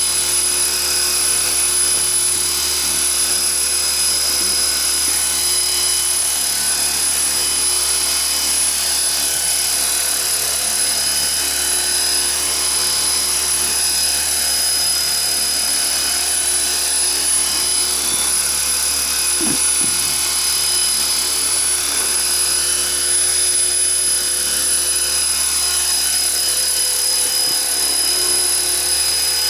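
Radio-controlled model helicopter in flight: a steady high-pitched motor whine with the whir of its rotor blades, holding even throughout as it hovers and climbs.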